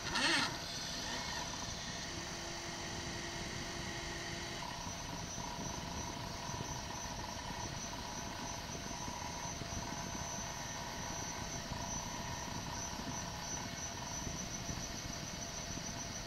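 Small laser CNC engraver running, its stepper motors whining in steady tones that change and switch on and off as they drive the laser head, over a steady hiss. A brief louder sound comes just after the start.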